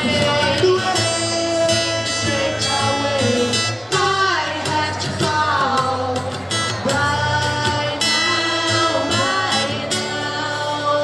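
Live song: a voice singing over acoustic guitar, with sustained low notes underneath.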